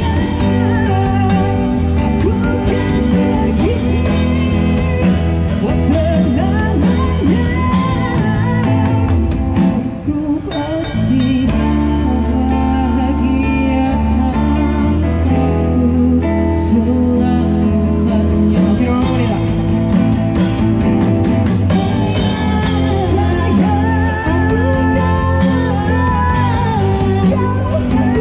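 A street band playing a song through an amplifier: acoustic guitars strummed under a lead vocal sung into a microphone. The music thins briefly about ten seconds in, then carries on.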